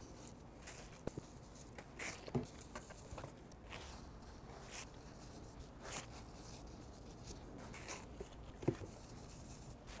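Faint handling noise of hands working at a server's CPU and heatsink: soft rubbing and scratching with a few small clicks, the sharpest near the end.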